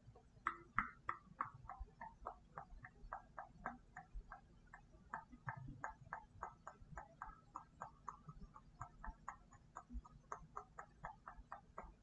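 Fast mouth clicks and pops made with the tongue and lips, close-miked: a rapid, fairly even run of short clicks, about four or five a second, starting about half a second in.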